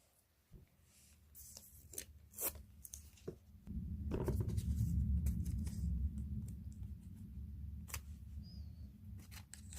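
Photocard packing materials being handled up close: short crisp crinkles and clicks scattered throughout, with a low rumble of handling noise starting about four seconds in and staying the loudest sound.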